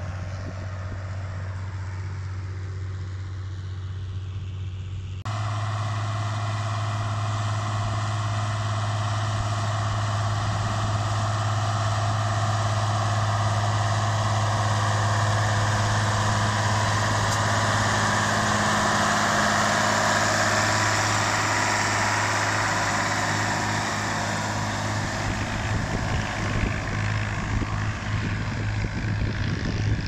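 Torpedo 9006A Special tractor's air-cooled diesel engine running steadily under load, pulling a three-furrow plough. It turns louder and brighter about five seconds in, and rougher and more uneven in the last few seconds.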